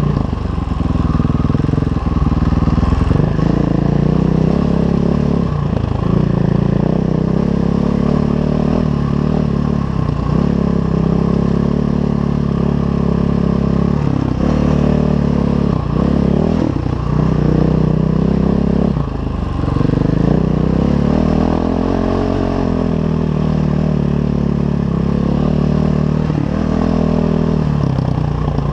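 KTM 500 EXC enduro bike's single-cylinder four-stroke engine running under way, revs repeatedly dropping off and picking up again with the throttle.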